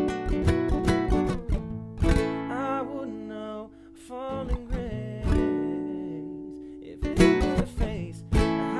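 Solo acoustic guitar strumming chords, several left to ring out and die away, with quicker strokes near the end and a wordless vocal line over it.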